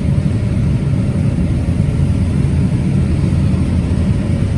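John Deere combine harvester running steadily while harvesting beans, heard from inside the cab: a constant low engine and machinery rumble with a faint steady hum above it.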